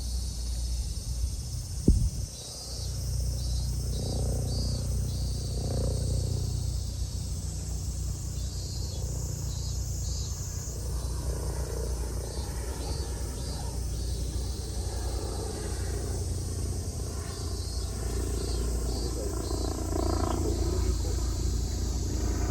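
Outdoor summer ambience: steady high-pitched insect buzzing with rhythmic pulsing chirps, over a steady low rumble. A single sharp knock sounds about two seconds in.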